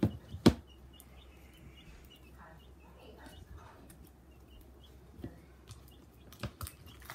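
Slime being squeezed and worked by hand, with two sharp pops close together at the start and two more near the end. A faint, high, rapidly repeated chirping sounds underneath for the first few seconds.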